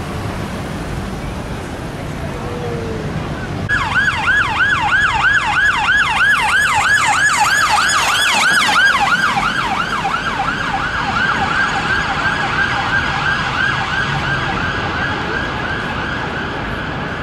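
Siren of a Volkswagen Tiguan ambulance response car on yelp: a fast rise-and-fall wail about three times a second. It cuts in about four seconds in over city traffic noise, then grows fainter as the car moves off.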